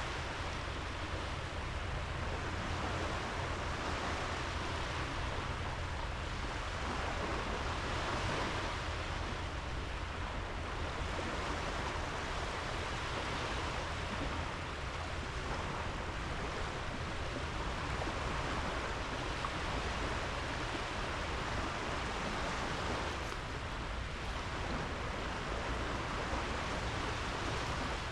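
Small sea waves washing onto a sandy beach: a steady surf hiss that rises and falls every few seconds, over a constant low rumble.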